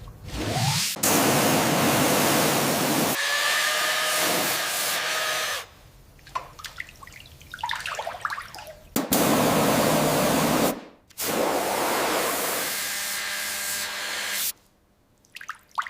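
Hissing spray in three long bursts of a few seconds each, with short breaks between them and a faint steady tone under some bursts.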